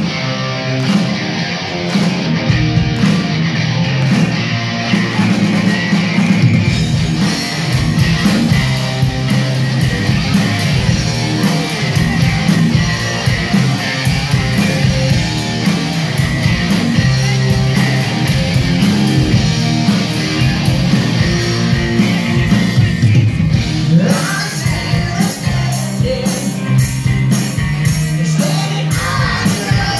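Live rock band playing through a PA: electric guitars, bass and drums, with a singer's voice coming in about three-quarters of the way through as the drums hit harder.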